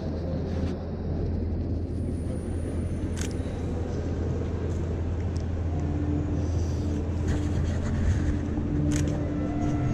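Steady low background rumble and noise, with a few short sharp clicks. From about six seconds in, faint held musical tones come in.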